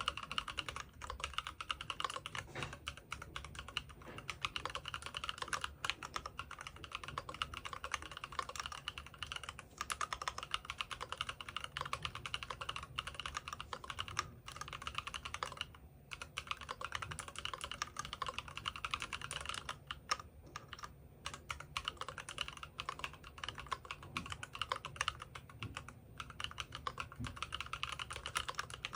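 Keychron Q11 mechanical keyboard with Monstargear Milgam switches being typed on quickly and continuously: a dense run of keystroke clacks, with short pauses about 16 and 20 seconds in.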